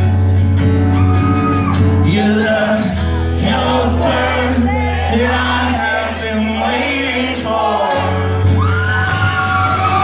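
Live rock band playing, with acoustic and electric guitars, bass and keyboards under a male lead vocal, recorded from the audience.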